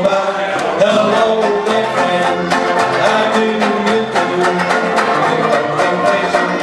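Live band performing a song: strummed banjo-ukuleles and banjo keep a steady rhythm while men sing together.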